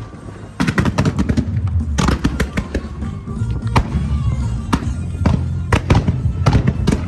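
Fireworks finale: aerial shells bursting in rapid succession, many sharp bangs one after another over a continuous low rumble. A short lull comes in the first half second, then the bangs come thick and fast.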